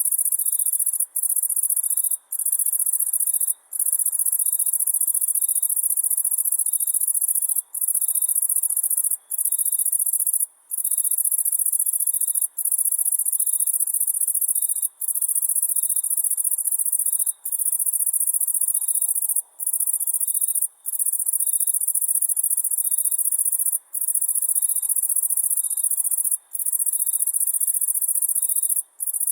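Cicada buzzing: a loud, continuous high-pitched drone that breaks off for a split second every one to three seconds, then resumes.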